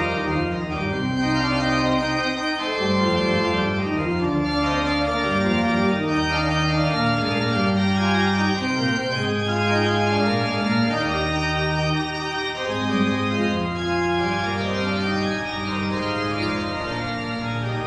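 Gottfried Silbermann pipe organ playing slow, sustained chords over a bass line that moves note by note, its wind supplied by hand-trodden bellows. Some quick ornamented notes are heard high up near the end.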